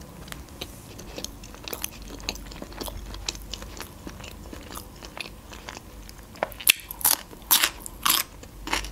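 Close-up chewing of whole-grain bread with cream cheese: soft crunching and wet mouth clicks, with louder, sharper smacks in the last couple of seconds.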